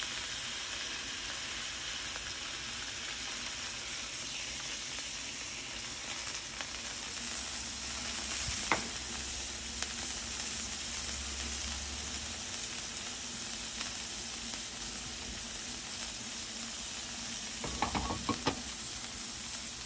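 Smash burger patties and sliced onions frying on a hot flat-top griddle, a steady sizzle, with a single sharp click about nine seconds in and a few short knocks near the end.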